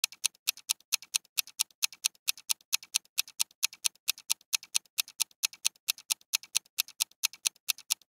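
Rapid mechanical ticking sound effect: sharp, high clicks about four to five a second in a slightly uneven clatter, laid under a countdown.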